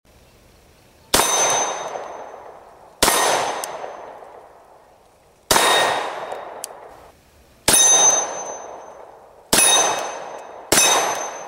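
Six pistol shots from a Glock at a steel target, each hit sharp and then ringing out for a second or two, spaced unevenly like aimed fire.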